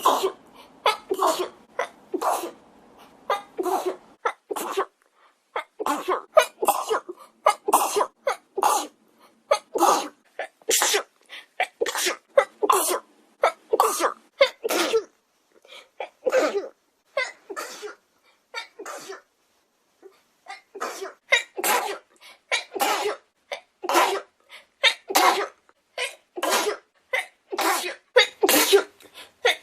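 A young woman sneezing over and over in an uncontrollable fit, short sharp sneezes coming about two a second with a couple of brief pauses.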